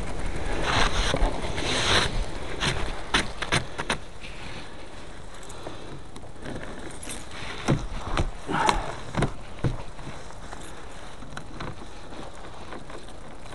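Heavy wet snow being scraped and pushed off the side of a truck by hand: bursts of crunching and swishing for the first few seconds, then quieter, with a scatter of crunches and knocks a little past the middle.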